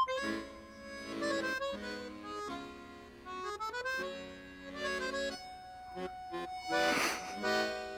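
Background music: a melody of held notes that change every half second or so, with a short noisy burst about seven seconds in.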